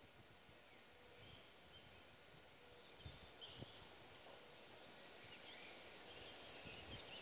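Near silence: faint outdoor ambience with a few distant bird chirps and a soft wind hiss that slowly rises toward the end.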